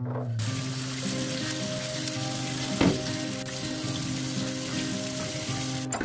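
Tap water running in a steady hiss into a stainless steel sink, rinsing soap suds off a glass fridge shelf. The water comes on about a third of a second in and shuts off just before the end, with a brief louder splash or knock near the middle.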